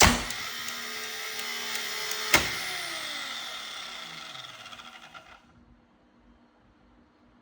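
Air circuit breaker closing with a loud clack. Its spring-charging motor then whirs for about two seconds. A second sharp click follows, and the motor winds down in falling pitch and fades out.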